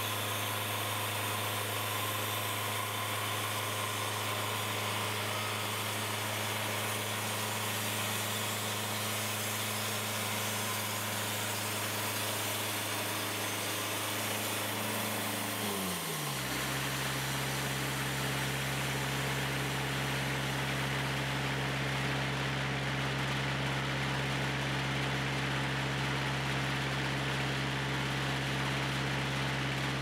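Wood-Mizer portable sawmill's engine running steadily. About sixteen seconds in, its pitch slides down and it settles to a steady, lower running speed. A constant high cicada buzz runs over it.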